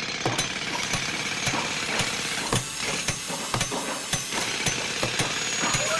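An engine running with many irregular knocks and clicks over a steady rough noise.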